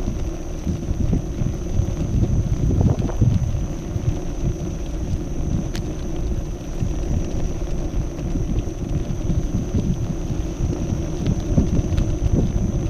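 Tyre of a Kingsong KS14 electric unicycle rolling over cobblestones: a loud, uneven low rumble and rattle, with wind on the microphone.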